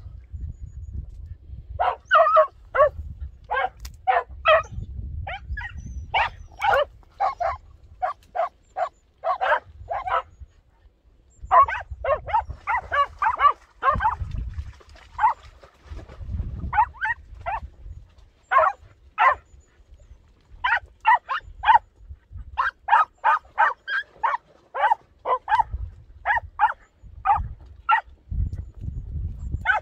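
Podenco Orito Español hunting dog yelping over and over in quick runs of short, high barks, about two or three a second, with brief pauses between the runs.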